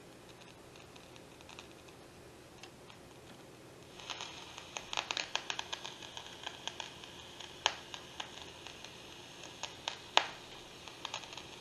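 Hallicrafters SX-99 shortwave receiver putting out crackling static with irregular clicks and pops from its speaker as a knob on the set is turned, starting about four seconds in; two sharper pops stand out, one past the middle and one near the end.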